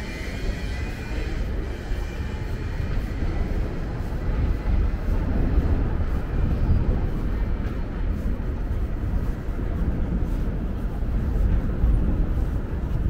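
Steady low rumble of city street noise, most likely passing traffic, with no pauses or sudden events.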